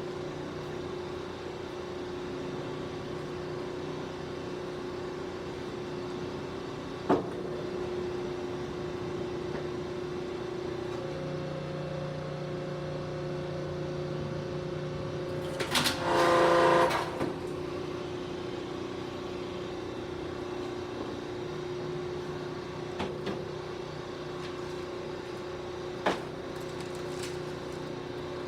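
Industrial machine running with a steady hum, with a lower tone joining partway through. There are a few sharp knocks, and one loud, harsh burst lasts about a second and a half near the middle.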